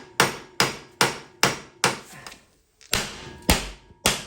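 Hammer blows on a Polaris Sportsman ATV prop shaft yoke, knocking the old seized U-joint out. There are about eight sharp metal strikes, roughly two to three a second, each with a short ring, and a brief pause a little past halfway.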